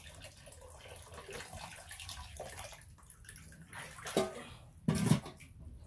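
Water poured from a metal kettle into a plastic basin and swished by hand, with louder sloshes twice in the second half.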